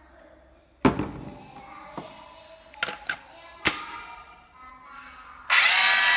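Plastic knocks and clicks as a battery pack is handled and snapped into a Makita 18V cordless circular saw. About five and a half seconds in, the saw motor starts with no blade fitted, its pitch rising as it spins up. It sounds a bit tight and squealing, which the seller puts down to a motor needing cleaning and oiling.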